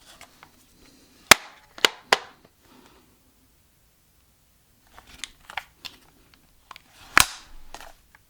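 Folding stock of a Krytac Kriss Vector airsoft replica being folded and unfolded: sharp clicks and clacks of the hinge and latch in two groups, with a loud snap a little over a second in and another about seven seconds in.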